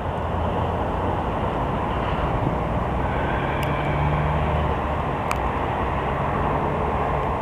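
Steady low rumble of vehicle engines by a railway line, with two faint clicks about three and a half and five seconds in.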